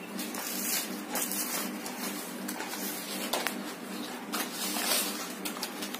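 Fresh green leaves rustling and crackling in irregular bursts as they are folded by hand into a leaf cup.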